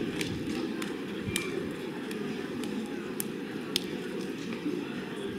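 Street crowd ambience: a low, steady murmur of people with scattered small clicks and taps.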